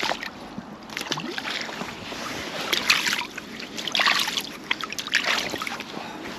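Irregular splashing and sloshing of water, mixed with short handling knocks and rustles.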